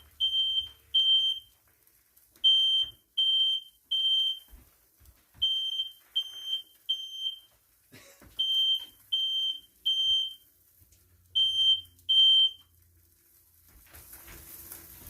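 Smoke alarm sounding in repeated sets of three high-pitched beeps with a short pause between sets, set off by smoke from grilling indoors. It cuts off partway through a set, near the end.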